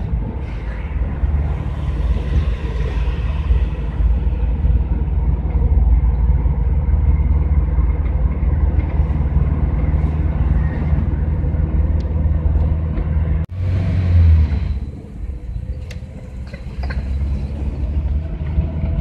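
Steady low engine and road rumble heard from inside the cab of a GAZelle van on the move. About two-thirds of the way through it breaks off abruptly, followed by a brief louder burst and then quieter rumble that builds up again near the end.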